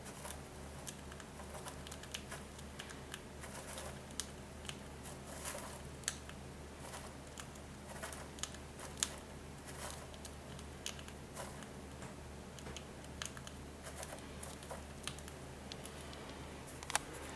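Faint, scattered light clicks and rustles, a few a second, over a steady low hum.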